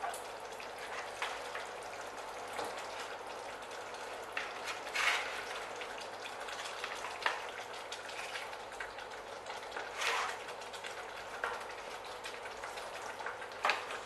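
Yogurt masala gravy sizzling in a stainless steel pan, with a wooden spatula scraping and knocking against the pan as fried rohu fish pieces go in. The loudest knocks come about five and ten seconds in.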